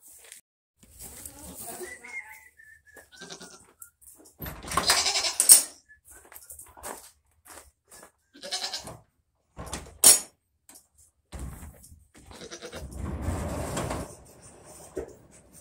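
Goats bleating in several separate calls, the loudest about a third of the way in and again near the end.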